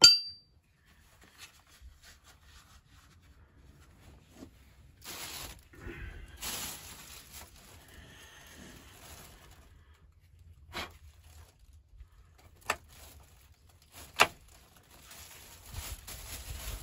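A steel chisel bit clinks and rings briefly as it is set down on rocky ground. Then plastic rustles twice as a bagged cordless hammer drill is handled, with a few sharp metal clicks.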